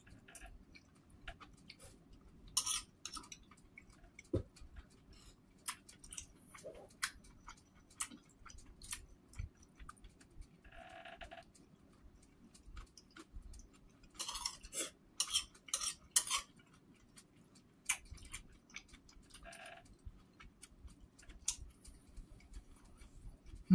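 Metal spoon clinking and scraping against a ceramic bowl of rice porridge as it is scooped up, in scattered short clicks with a busier run of clinks in the middle, and quiet chewing between spoonfuls.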